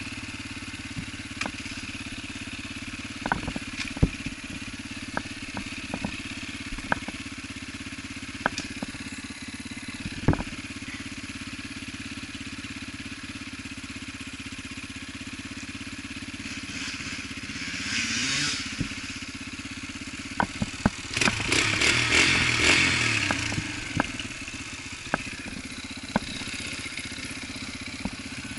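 Small single-cylinder four-stroke trail dirt bike running at low speed over rough ground, with frequent sharp clicks and knocks. About 17 s in, and again a few seconds later, a louder rush of noise comes in as the engine revs up.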